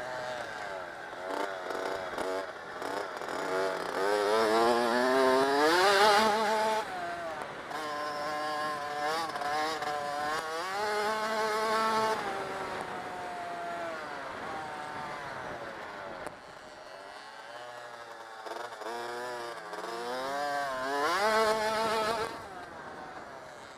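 Dirt bike engine revving hard and shifting through the gears, its pitch climbing steeply and dropping back again and again. The loudest climb comes about six seconds in, there is a quieter stretch of lower revs in the second half, and it climbs hard again near the end.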